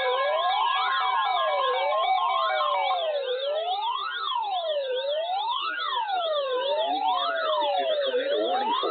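Electronic sirens sounding together: a wail rising and falling about every second and a half, over faster sweeps higher up, with steady tones underneath that fade out about three seconds in.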